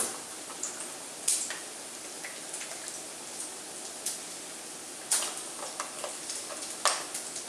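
Grated raw potato being mixed by hand with egg and liquid cream in a stainless steel bowl: soft wet squishing, with a few short sharp taps against the bowl.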